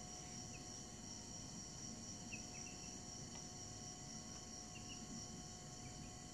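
Young chicks giving a few soft, short peeps over a steady high-pitched whine.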